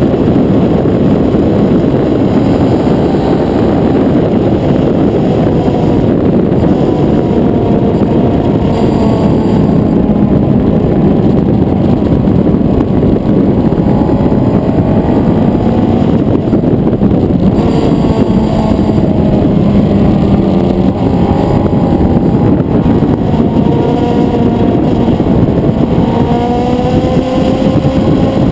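A Suzuki GSX-R1000's inline-four engine at track speed, heard through heavy wind rush on an onboard microphone. The engine note rises and falls with throttle and gear changes, with several rising sweeps in the second half.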